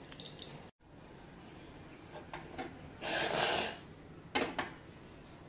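Faint kitchen handling sounds: a few light clicks, a short scraping or rushing noise about halfway through, then two sharp clicks.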